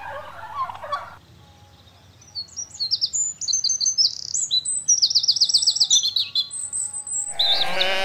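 Birdsong of rapid high chirps and whistled trills, beginning about two seconds in. Near the end a louder, wavering pitched sound breaks in.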